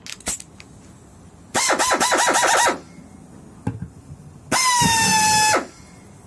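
Pneumatic push-to-start screwdriver's air motor run twice, about a second each: a high whine over a hiss of exhaust air. The first run stutters in quick pulses, and the second is steady with a pitch that sinks slightly. Light handling clicks come just before.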